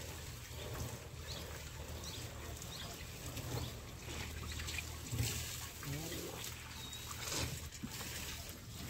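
Water trickling and splashing over a steady low hum.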